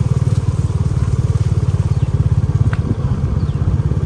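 Motorcycle engine running steadily in a low gear, a fast, even low putter, held in first gear to hold the bike back on a slippery downhill.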